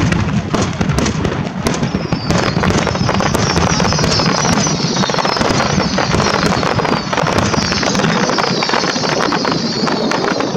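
Fireworks finale barrage: many aerial shells bursting and crackling in rapid succession, joined about two seconds in by a run of high falling whistles. Wind buffets the microphone underneath as a steady low rumble.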